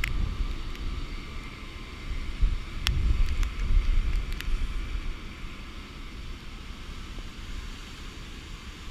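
Hurricane Irma's wind gusting and buffeting the microphone over a steady rushing hiss, with a few sharp clicks or knocks near the middle.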